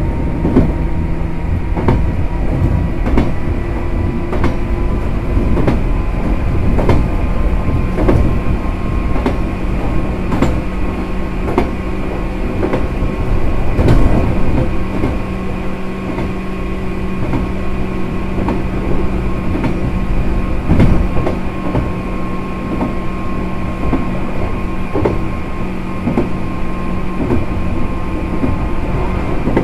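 Inside a JR West 105 series EMU motor car at speed: the MT55A traction motors whine at a steady pitch over the rumble of the running gear. Wheels clack over rail joints again and again.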